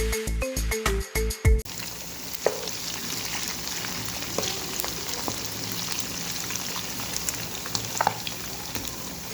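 Background music with a steady beat for about the first second and a half, then it cuts to food sizzling steadily as it fries, with a few light clicks scattered through.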